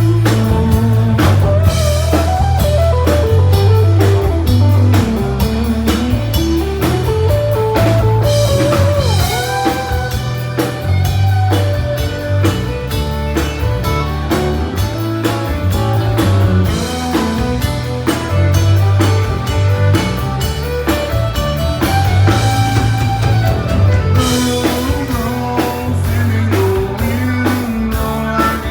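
Country band playing an instrumental passage with drum kit, bass and guitar under a wavering lead melody.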